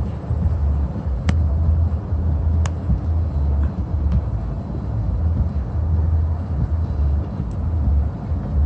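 Wind rumbling unevenly on a phone's microphone outdoors, with a few faint clicks.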